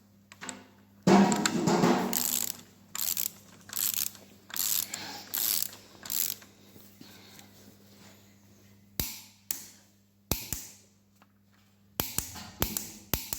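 Ratchet torque wrench tightening an engine bolt to 80 Nm, a run of short ratcheting strokes. After a pause come a few sharp single clicks, the wrench breaking over as it reaches the set torque.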